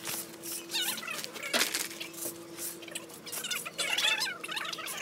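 Leaves and cut brush rustling and scraping in short strokes, with high wavering chirps over it about a second in and again near the end, and a faint steady hum underneath.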